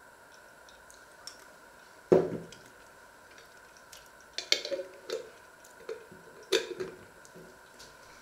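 Glass jam jar handling: faint spoon clinks in the jar at first, then the jar set down on a wooden worktop with a thud about two seconds in, the loudest sound. A run of sharp clicks and clinks follows as its metal screw lid is put on and twisted shut.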